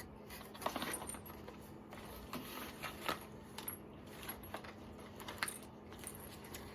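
Scattered light clicks and small metallic rattles of AR-15 parts being handled and set down, over a faint steady hum.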